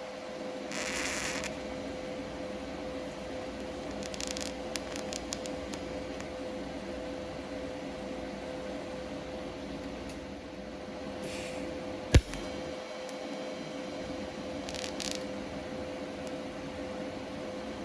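TIG welder making short welds on rust holes in a steel gas tank: brief hisses with faint crackle a few times over a steady shop hum, and one sharp click about twelve seconds in.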